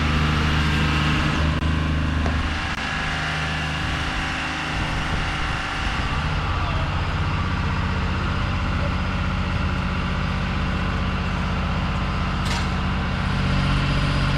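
Diesel engine of a mobile boat travel lift running steadily, its note changing and settling a few seconds in.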